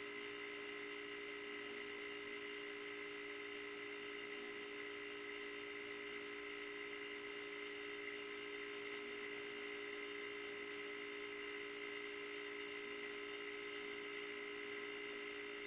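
A steady hum of several fixed tones, a low one together with a higher whine, over a faint hiss, unchanging in pitch and level.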